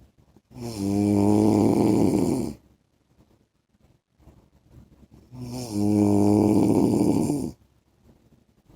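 A man snoring: two long, low-pitched snores about five seconds apart, each lasting about two seconds.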